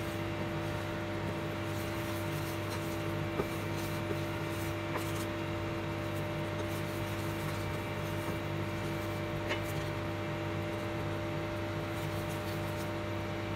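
Steady electric hum and fan noise from an induction cooktop heating a stainless steel saucepan of boiling dark brown sugar syrup, with a few faint light taps of a wooden spatula against the pan.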